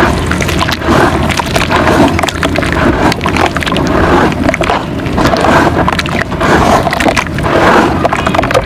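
Wet red dirt being mixed by hand into a thick mud paste: squishing and sloshing with dense gritty crackles, swelling in uneven strokes.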